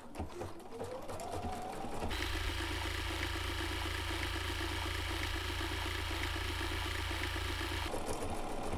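Bernina 770QE computerized sewing machine stitching a decorative pattern. Its motor whine rises as it speeds up over the first two seconds, then runs steadily with an even rhythm of needle strokes for about six seconds, and stops suddenly.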